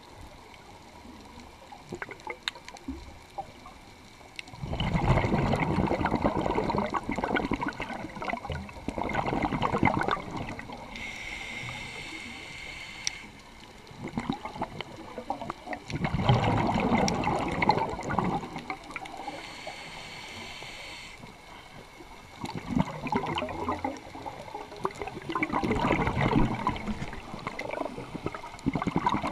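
Scuba diver breathing through a regulator underwater. Long bubbling bursts of exhaled air alternate with shorter, thinner hisses of inhaling through the regulator, over about three breaths.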